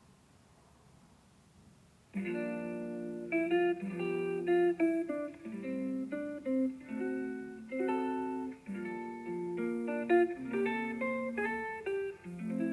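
Background music: a plucked guitar tune that begins about two seconds in, after a short near-silent gap.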